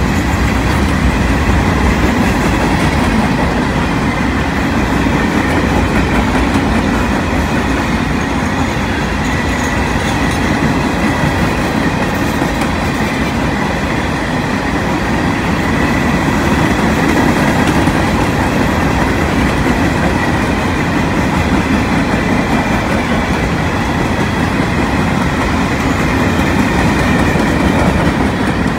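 Freight cars of a mixed freight train rolling steadily past: the continuous rumble and rattle of steel wheels on the rails.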